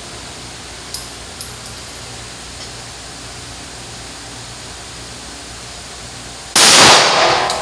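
A single 9mm shot from a Glock 45 pistol about two-thirds of the way in, very loud and sudden, with an echo dying away over about a second. Earlier, a few light metallic clinks.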